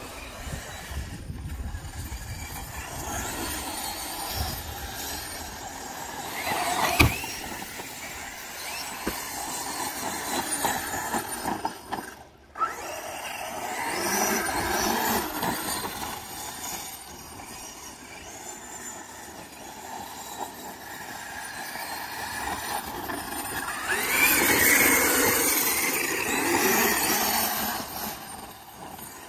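Losi 5ive-T RC truck driving on sand, its Lehner brushless motor whining up and down with the throttle over the hiss of tyres churning sand. The whine is loudest a few seconds before the end. There is a sharp knock about seven seconds in.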